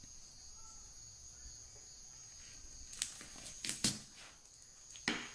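Quiet handling, then a few brief rustles and scrapes about three seconds in and again near the end, as a painted stick is pushed into a ball of artificial flowers.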